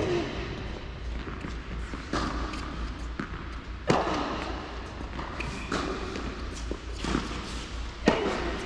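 Tennis rally in an indoor hall: rackets striking the ball about every two seconds, with ball bounces between the shots. The near player's strokes are the loudest, just before 4 s and about 8 s in.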